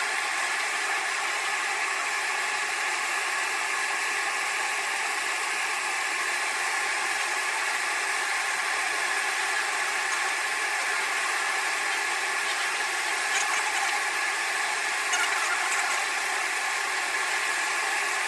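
Laser marking machine raster-engraving a photo onto a metal plate: a steady buzzing hiss with a few constant tones in it, and a couple of faint ticks about halfway through.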